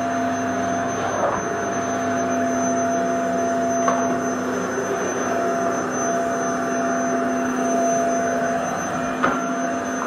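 Vacuum cleaner running steadily: a constant motor hum and airflow rush with a steady whining tone. Two brief knocks, about four seconds in and near the end.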